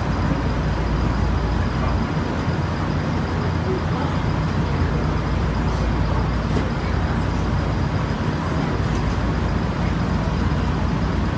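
Steady low hum and rumble inside an electric trolley car, with no distinct single sounds standing out.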